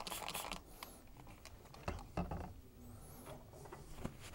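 Faint scraping and rubbing of a screwdriver and rag working debris out of a white Teflon end cap, with small clicks, a couple of soft knocks about two seconds in and two thin squeaks.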